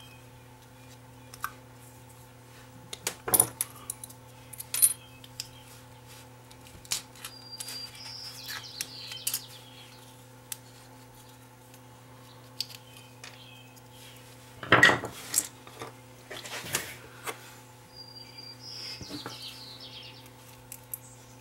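A steel pick prying and scraping at a soldered-on metal shield cover on a small circuit board, with scattered clicks, light metallic clinks and short scratchy squeaks. The loudest clatter comes about two-thirds of the way through. A steady low hum runs underneath.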